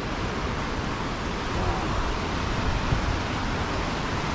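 Steady rushing noise of the flood-swollen Nolichucky River running high and fast.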